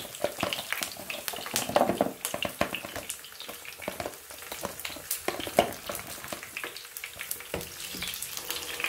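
Onions and garlic sizzling and crackling in hot oil in an electric skillet, as raw prawns are tipped into the pan and stirred in with a spatula.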